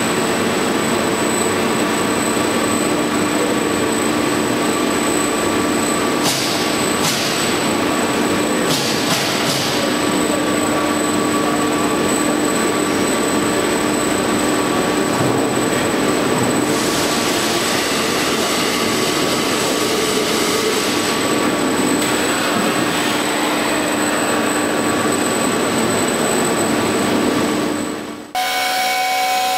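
Flying cutoff saw on a tube mill, with carbide-tipped blades making an orbital cut, running steadily with a constant hum and a high whine. There are a few clanks about six to nine seconds in, and louder, harsher noise for several seconds from about halfway. Near the end the sound cuts off suddenly and gives way to a steadier whine.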